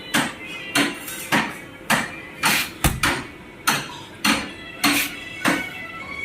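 Background music with a steady percussive beat, a little under two beats a second.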